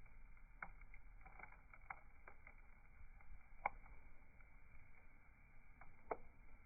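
Bonfire crackling faintly: scattered pops and snaps of burning wood over a low steady hiss, the sharpest pop about three and a half seconds in.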